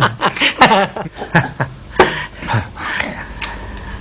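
Broken, breathy laughter after a joke, fading about two and a half seconds in to a low steady hum.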